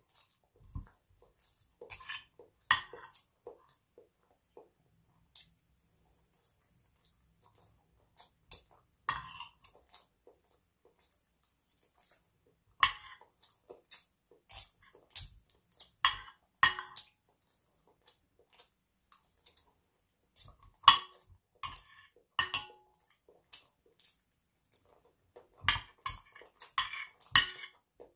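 Metal cutlery, a table knife with a spoon and fork, clinking and scraping against a white dinner plate while cutting chicken off the bone: scattered sharp clinks with quiet gaps, coming more often in the second half.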